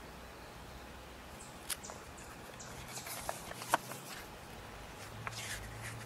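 Glossy brochure pages in a binder being handled and turned: paper rustling in short swishes with a few light clicks and taps, the sharpest about halfway through.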